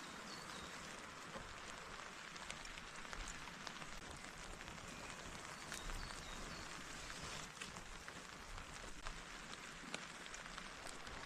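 Steady rain falling, with scattered sharper drop ticks.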